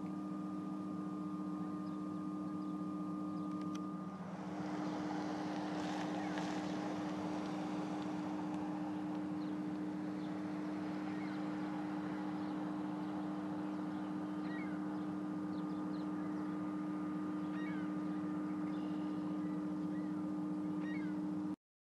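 Steady machinery drone with two low hum tones, joined about four seconds in by a wider rushing noise. Faint short bird calls come through in the second half, and the sound cuts off suddenly near the end.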